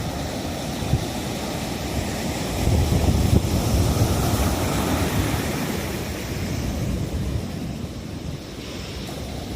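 Ocean surf breaking and washing in heavy pre-typhoon swell, a steady roar that swells about two and a half seconds in and eases off toward the end, with wind buffeting the microphone.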